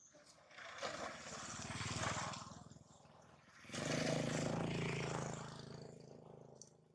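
Motorbikes passing by on the road, one swelling and fading about a second in, then a louder one just under four seconds in that fades away.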